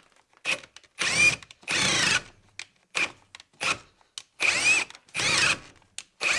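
Ryobi brushless cordless hammer drill in drill mode boring into a wooden post. It runs in short spurts of about half a second, each starting with a rising whine, stopping and starting again about eight times.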